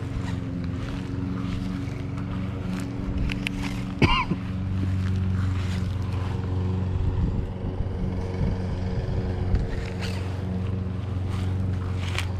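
A steady mechanical hum from an engine or motor: a low drone with a few even overtones, growing louder about four and a half seconds in. About four seconds in there is a sharp click with a brief wavering whine.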